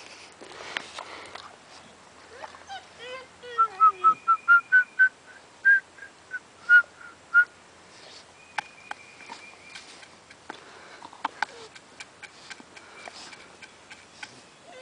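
A person whistles a quick run of about a dozen short notes, rising slightly in pitch, with scattered light clicks and rustles around it.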